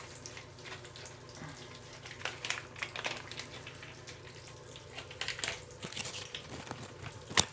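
Bathwater in a tub sloshing with irregular small splashes, ticks and rustles over a low steady hum. There is one sharp knock near the end.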